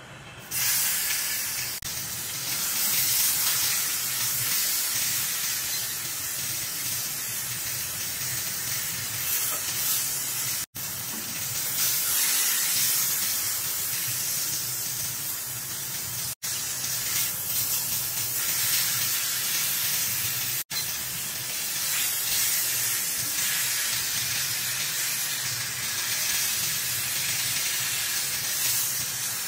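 Beef tenderloin searing in a very hot oiled skillet: a loud, steady sizzle that starts suddenly about half a second in, broken by three brief silent gaps.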